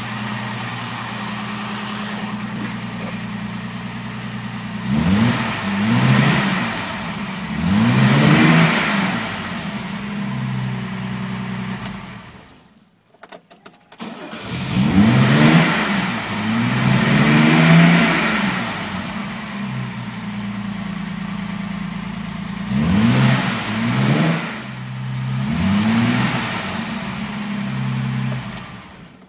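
1965 Mercedes-Benz 230SL's fuel-injected straight-six idling, heard from the driver's seat, and blipped with the throttle several times, often two revs close together, each rising and falling back to idle. There is a break of about a second and a half midway, and the sound fades out near the end.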